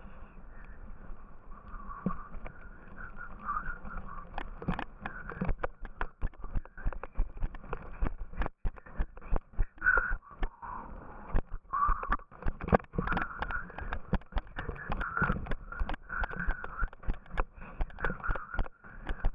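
Yooner sled sliding down a packed-snow slope: the ski scraping over the snow with a steady low rumble, and a dense run of sharp knocks and rattles as it runs over bumps, getting busier from about four seconds in.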